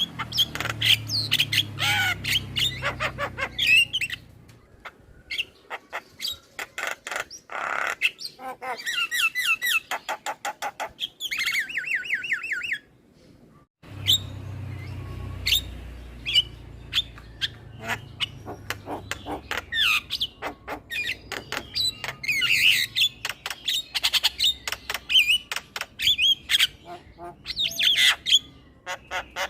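Male Javan myna singing its varied chattering song: harsh squawks, whistled notes and rapid clicking, with a fast run of repeated notes and then a brief pause about halfway through.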